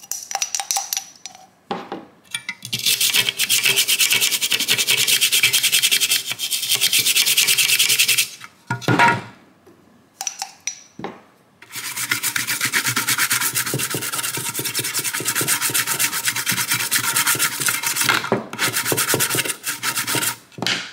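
Toothbrush scrubbing the solder side of a printed circuit board to clean off flux residue after desoldering, with rapid back-and-forth strokes. The scrubbing comes in two long spells with a pause of a few seconds in the middle.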